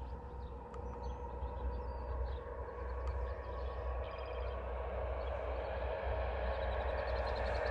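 A motor vehicle's engine rumbling steadily, slowly growing louder as it approaches.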